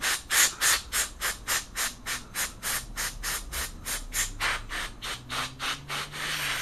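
Aerosol can of gun-cleaning spray worked in a quick, even rhythm of short swishes, about three or four a second, just before a continuous spray hiss starts at the very end.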